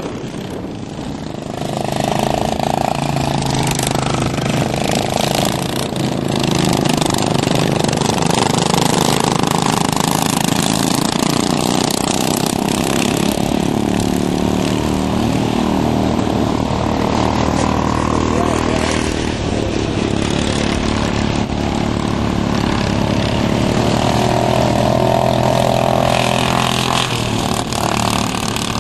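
Several racing ride-on lawn mower engines running hard at once, their pitches shifting up and down.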